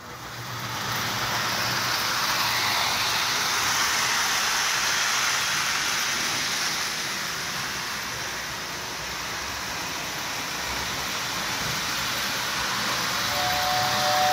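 Prewar Lionel 1668 2-6-2 toy train locomotive running with its string of tinplate passenger cars: a steady whir and rattle of the motor and wheels on the track, building up in the first second as it gets under way. Near the end the 2689 whistle tender sounds a steady two-note whistle.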